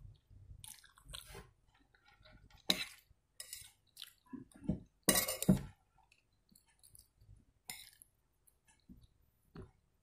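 A person eating dry-style instant noodles close to the microphone: slurping strands in and chewing. A few louder bursts come through, the loudest about halfway through.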